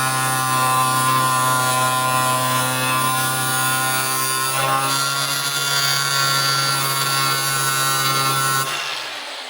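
Angle grinder fitted with a zirconia flap disc running steadily while grinding an aluminium bar to size. It is switched off near the end and spins down.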